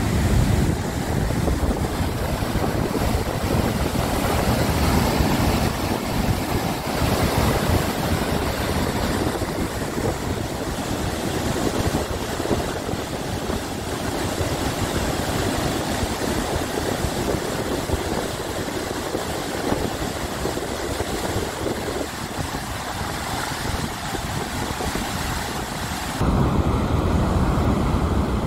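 Floodwater rushing over a dam's gated overflow spillway, a steady heavy rush. About two seconds before the end it gives way to a low rumble of wind on the microphone.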